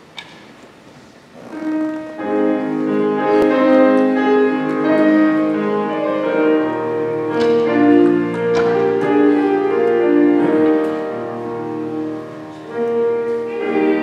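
Piano playing the introduction to a hymn, coming in about a second and a half in after quiet room tone, with a short click just before.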